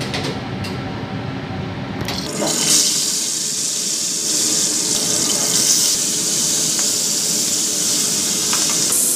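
Yellowfin tuna steaks sizzling as they fry in hot oil in a steel pan: a steady, loud hiss that starts about two seconds in as the first steak goes into the oil and holds as more are added.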